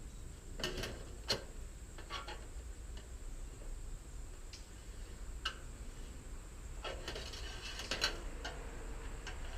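Scattered light clicks and taps from handling thin sheet-metal trim and hand tools, with a busier run of metallic clicks near the end.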